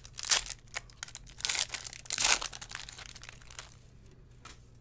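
Foil wrapper of a 2019 Panini Prizm Draft Picks baseball card pack crinkling and tearing as it is opened by hand, a run of rustles and crackles that dies away about three and a half seconds in.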